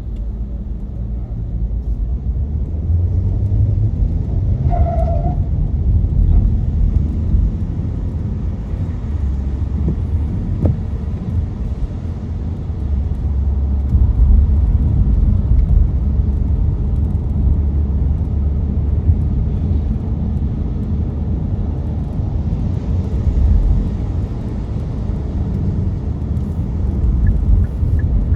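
Car driving on a rain-wet road: a steady low rumble of tyre and road noise. A short pitched beep sounds about five seconds in.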